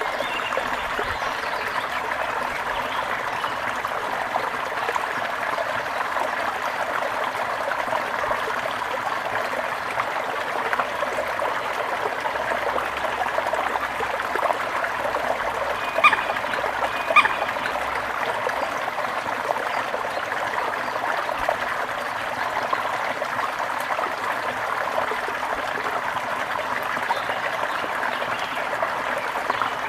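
Small river flowing with a steady, even babble. About sixteen and seventeen seconds in come two brief, sharp high sounds.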